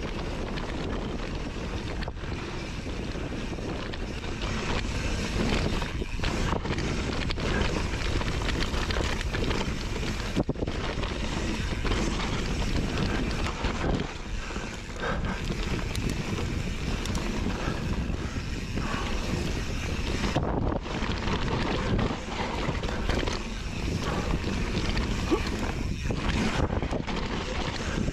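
Wind buffeting the microphone over the running noise of a mountain bike rolling fast along a dirt trail, with frequent small knocks as the bike hits bumps.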